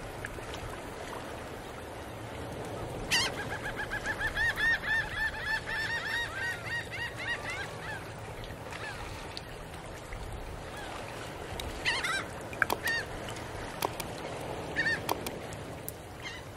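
Birds calling in a fast run of short honking calls, about five a second, for several seconds, then a few scattered calls and sharp clicks later on, over a steady background hiss.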